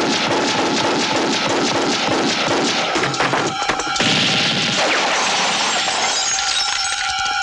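Movie gunfight sound effects: rapid gunfire with crashing and shattering debris, then a single big blast about four seconds in. A music score sounds underneath.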